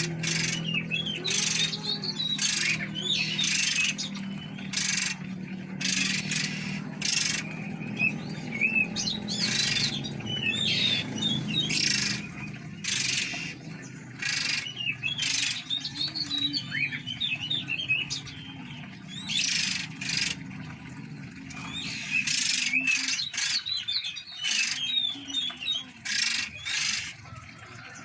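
Caged oriental magpie-robins (kacer) calling: a run of short, harsh chirps mixed with quick curling whistled notes, over a low steady hum that fades near the end.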